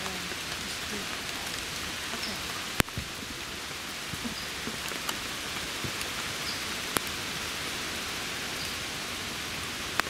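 Steady rain pattering on forest leaves, an even hiss. A few sharp single ticks stand out, the loudest about three seconds in and again about seven seconds in.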